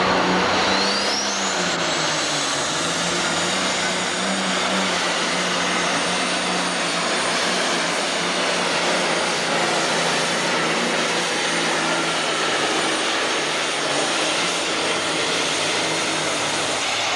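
John Deere 4010 super stock pulling tractor's diesel engine running flat out under heavy load as it drags the weighted sled, loud and steady. A high whine rises in pitch about a second in.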